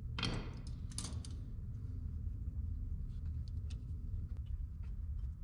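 Hand work on a steering gearbox under the hood: two short scraping noises in the first second or so, then scattered light clicks of parts and tools being handled, over a steady low hum.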